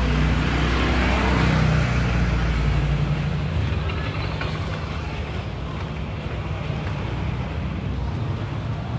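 Small motorcycle engines passing close by: a motorcycle pulling a sidecar cart goes past, its engine loudest in the first three seconds, then a scooter rides by as the engine sound drops off, over steady street traffic noise.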